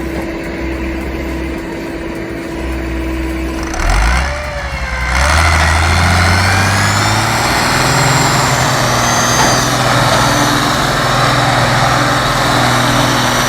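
A machine running steadily, then about four seconds in the sound changes abruptly to an Ursus tractor's diesel engine revving up, its pitch climbing and then holding steady as it pulls a heavy load of logs.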